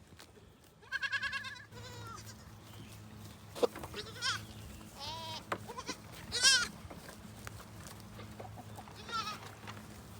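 Goats bleating: a string of separate wavering calls of different pitches, the first with a fast quaver about a second in and the loudest about six and a half seconds in, over a steady low hum.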